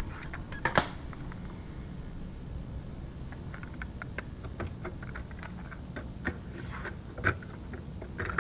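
Plastic clicks and light rattles of a cassette being taken from its hinged case and loaded into an Optimus stereo cassette deck, with a sharp click about a second in and the deck's cassette door clicking shut near the end. A low steady hum runs underneath.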